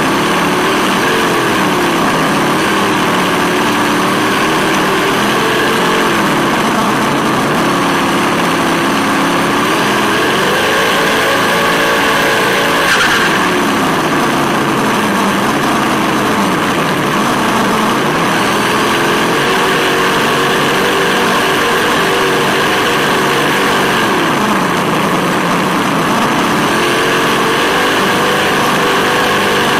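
Sense Hobby ESS-One engine sound simulator in an RC scale 4x4 playing a V8 engine sound. Its pitch climbs, holds and falls back several times with the throttle, over a steady hiss from the car running on the road.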